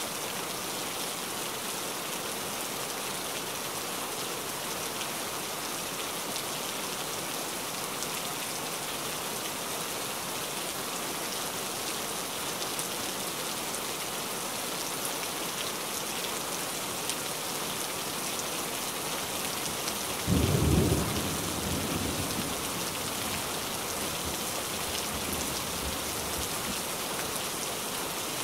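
Steady rain falling and splashing, with a sudden clap of thunder about twenty seconds in that fades into a low rumble over a few seconds.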